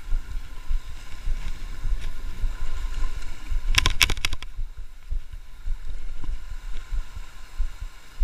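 Wind rumbling on the microphone over the wash of sea on a rocky shore, with a quick cluster of sharp clicks about four seconds in.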